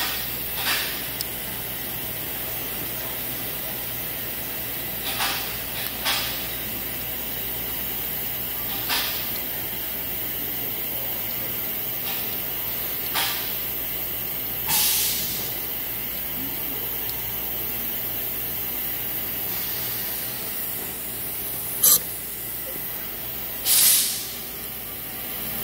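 Steady hiss, with about eight brief, sharp noises scattered through as a hex key tightens screws on a spin indexer's spindle; the two loudest come near the end.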